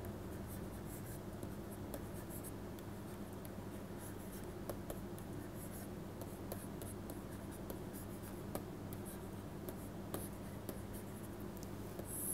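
Stylus scratching and tapping on a pen-tablet surface as words are handwritten, in faint short strokes over a steady low hum, with a slightly louder stroke near the end.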